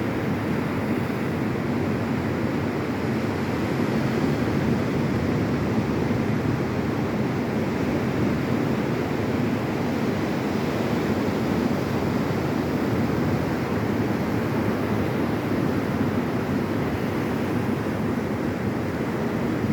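Ocean surf on a beach, a steady rush of breaking and washing waves.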